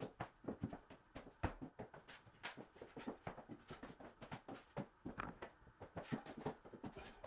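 Faint, irregular clicking and knocking, several short knocks a second.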